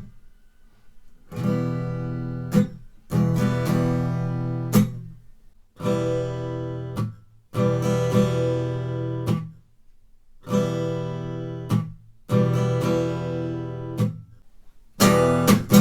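Acoustic guitar strummed on an E minor chord in the galop pattern: triple down-up-down strokes with the third accented, each passage cut off by a percussive down-stroke on strings muted with the fretting hand, about six times over.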